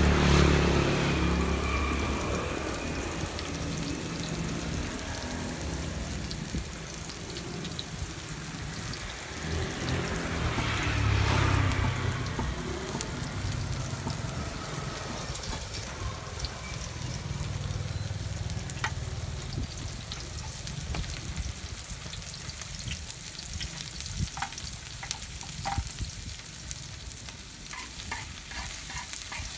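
Food sizzling and crackling as it fries in hot oil in a pan, with scattered sharp pops that come more often near the end. A low rumble swells twice, at the start and about eleven seconds in.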